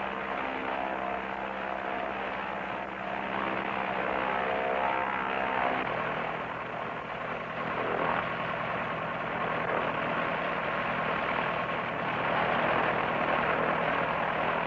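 Single-engine propeller light airplane droning steadily in flight. About six seconds in, the sound turns noisier and rougher.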